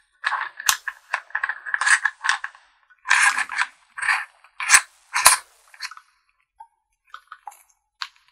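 Machined-metal gun-grip handle being worked on a gimbal's mount. Metal clicks, scrapes and clinks come in a dense run for the first five seconds or so, then only a few faint ticks.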